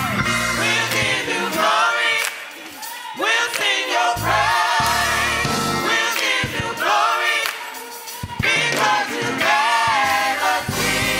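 Gospel choir singing through a church sound system. The bass drops out for most of it, leaving mainly voices, comes back briefly about four seconds in, then returns in full near the end.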